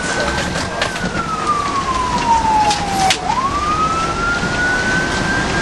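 Fire engine's siren in a slow wail, heard from inside the cab. Its pitch falls slowly for about two seconds, then sweeps quickly back up. Underneath are the truck's engine and road noise, with a few rattles.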